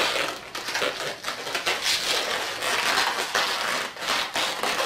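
Latex twisting balloons rubbing and creaking against each other as hands pull a yellow 160 balloon tight and tie it around orange balloons: an uneven run of scratchy rubbing.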